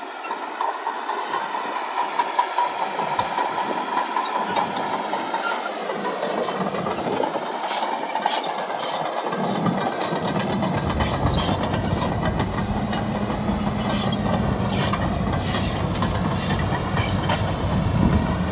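Caterpillar D6N LGP bulldozer moving on its steel tracks, with a steady high whine and clanking from the undercarriage over its diesel engine. About ten seconds in, the engine's deep low sound comes up strongly and holds.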